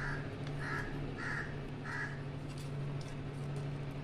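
A crow cawing four times in quick succession, about one caw every half second, over a steady low hum.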